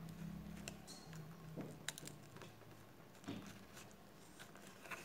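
A plastic card being worked along the seam between a Samsung Galaxy J3 (2016) screen and its frame to pry the display off: faint scraping with scattered small clicks, one sharper click about two seconds in.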